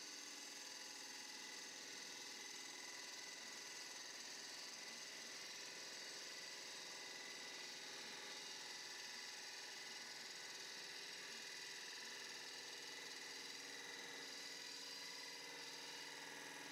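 Nova DVR XP wood lathe running with a steady whir while a gouge shaves the outside of a spinning she oak bowl.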